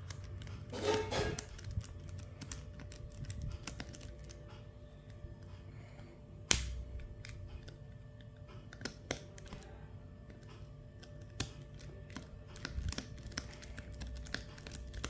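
Small precision screwdriver clicking and ticking against the screws and plastic frame of a Redmi 2 phone as screws are turned out, in scattered light clicks with one sharper click about halfway through.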